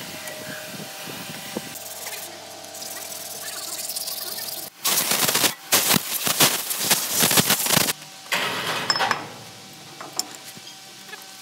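Loud, rapid metallic rattling: a burst of about three seconds starting some five seconds in, then a shorter burst just after, over low workshop background noise.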